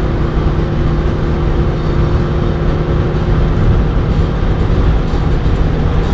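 Mitsubishi Eclipse running at high motorway speed: a steady engine drone over loud road and wind noise.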